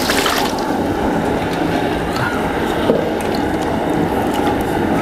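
Pieces of beef tipped from a metal vessel into a large aluminium pot of wet tomato-onion gravy, a loud splash and squelch at the start, then a ladle stirring and sloshing the meat through the gravy.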